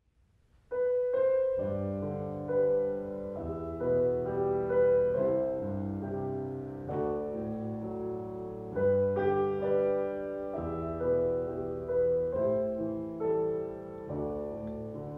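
Steinway grand piano playing solo, slow sustained chords with a single-note melody on top, starting about a second in after a moment of near silence.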